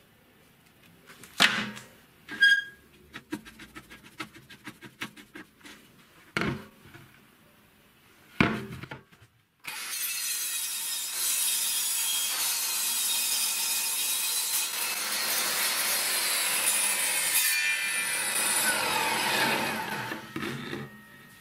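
A few scattered knocks and clatters of a board being handled, then, about ten seconds in, a homemade table saw's circular blade cutting through a veneered chipboard board: a steady, loud cutting noise lasting about ten seconds before it dies away near the end.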